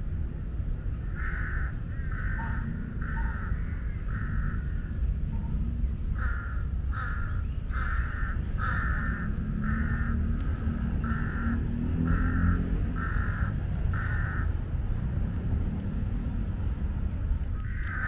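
Jungle crows cawing repeatedly in two runs of evenly spaced caws, about five and then about ten, with more starting near the end, over a steady low rumble. They are the parent birds protesting as their fallen chick is eaten by a monitor lizard.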